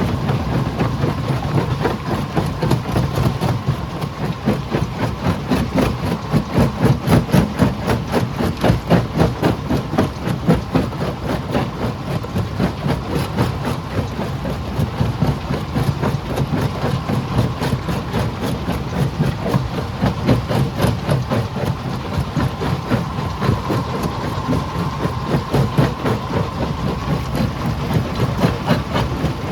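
Heavy rock-crushing machinery running steadily, a deep engine-like drone with a fast, even pulsing and no single loud impacts.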